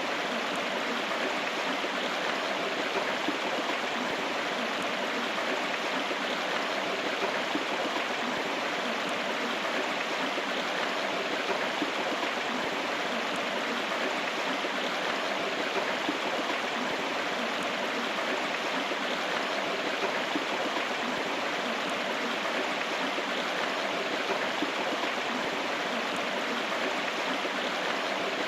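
River water flowing steadily, a continuous rushing with no breaks.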